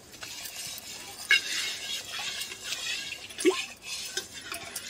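Hands smearing wet mud paste over the outside of an aluminium cooking pot, giving an uneven wet squelching and smearing, with a sharper sound about a second in. The mud coating (lep) is put on so soot from the wood-fired chulha washes off the pot easily.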